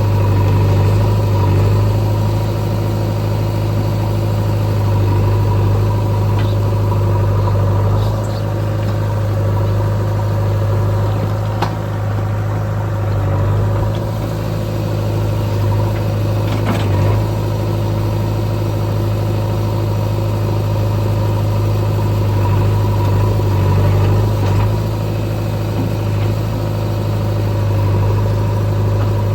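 Heavy diesel engine running steadily with an even, deep drone, and a few faint clicks over it.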